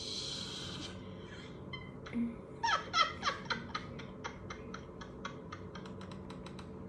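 A few louder knocks, then a run of light sharp taps that come faster and fainter before stopping, over a steady background hiss.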